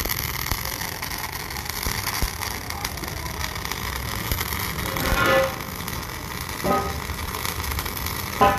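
MIG welding arc running steadily with a continuous crackling hiss as a bead is laid on a steel shaft joint.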